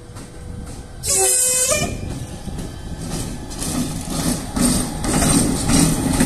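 TCDD E 68060 electric locomotive sounds its horn in one short blast, a chord of several tones, about a second in. It then runs past close by with its passenger coaches, a rumble and clicking wheels over the rail joints growing louder.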